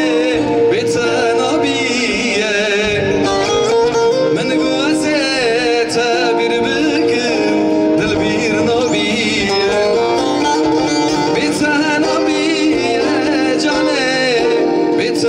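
Live amplified Kurdish wedding music: a man sings into a microphone with a wavering, ornamented melody, accompanied by an electronic keyboard and a bağlama.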